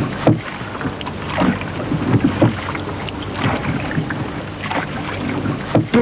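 A hand and arm slapping and scooping at the sea surface over the side of a small boat, giving a string of irregular splashes over the lapping of water.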